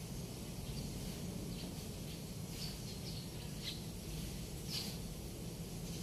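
Steady outdoor background noise with a low rumble, and a few short, high chirps spaced about a second apart.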